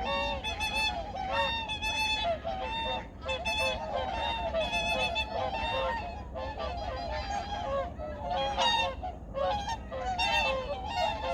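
A large flock of migratory waterfowl calling together, many short pitched calls overlapping without a break.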